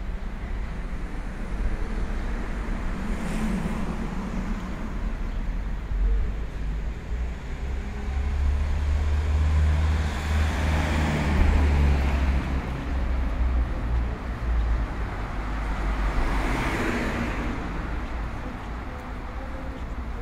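City street traffic: cars driving past one after another over a steady low rumble. The passes are loudest around the middle and again near the end.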